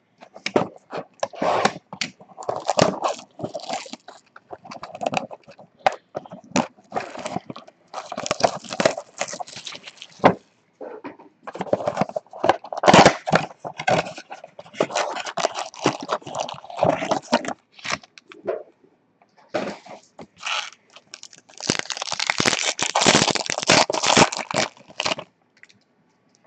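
Trading-card pack wrappers being torn open and crinkled, with cards sliding and tapping as they are handled. The crackling comes in irregular bursts with short pauses, with a long dense stretch near the end.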